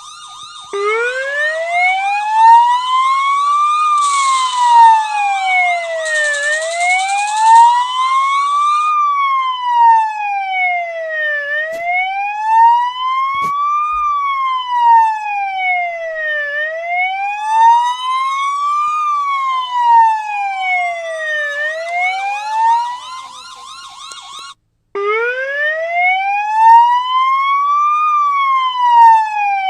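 Electronic police siren in a slow wail, its pitch rising and falling about every five seconds. A faster warbling siren layers over it at times. It cuts out briefly near the end and starts up again from a low pitch.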